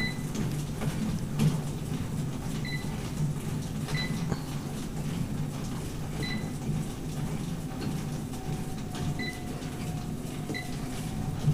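Life Fitness Lifecycle 9500HR upright exercise bike being pedalled at about 50 rpm: a steady low whir from its drive, smooth-sounding with no mechanical noise. About six short high electronic beeps from the console come at uneven intervals.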